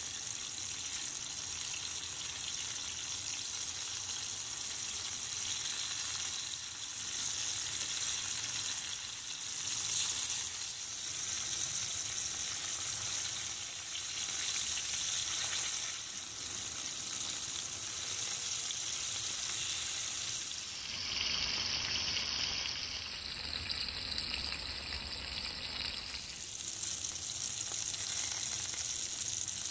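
Spiced fish pieces shallow-frying in oil in a non-stick pan: a steady sizzle.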